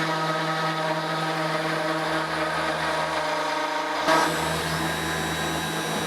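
Desktop CNC router's spindle motor running with a steady whine while the machine works through a roughing pass on a wooden relief cut. About four seconds in, the sound briefly gets louder and changes.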